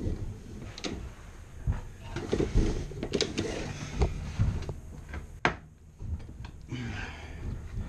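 Hands working at a dryer's sheet-metal vent bracket and aluminium duct in a tight gap behind the dryer: irregular knocks, scrapes and rustling, with several sharp clicks, the sharpest about five and a half seconds in.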